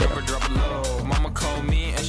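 Background music with a steady beat and a vocal line.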